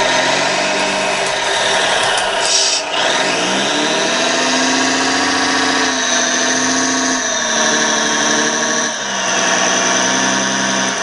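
1:16-scale radio-controlled hydraulic excavator working its claw: a steady mechanical whine from the hydraulic pump together with the sound module's diesel engine sound. The pitch steps up about four seconds in and drops back twice later on as the load on the hydraulics changes.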